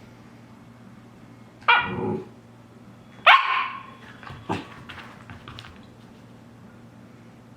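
Shiba Inu barking three times, about a second or so apart, the middle bark the loudest.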